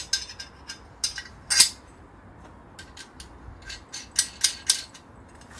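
Small steel brackets clinking and scraping together in the hands as a radiator mount is tried for fit on an engine mount. A series of sharp metallic clicks, the loudest about a second and a half in and a quick run of three near the end.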